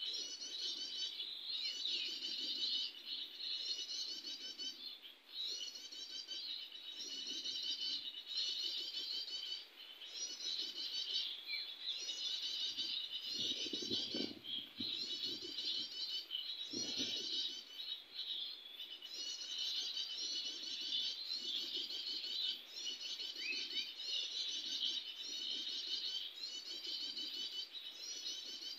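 Small songbird singing rapid, high chirping phrases, repeated over and over in bouts a second or two long with short breaks. There are two brief low rumbles about halfway through.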